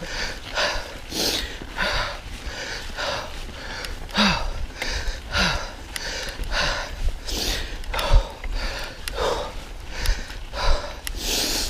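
Mountain biker's heavy, rhythmic breathing while riding, short breaths in and out repeating a little under twice a second.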